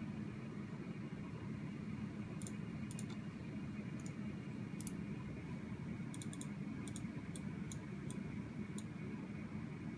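Computer mouse clicks, about a dozen short sharp clicks, some in quick pairs and a small cluster around six seconds in, over the steady low hum of a running desktop PC.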